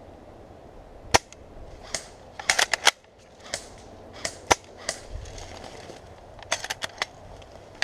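Airsoft guns firing: sharp cracks, with a single shot about a second in, a quick string of several shots shortly after, another single shot in the middle, and a rapid string of four near the end, with fainter shots between.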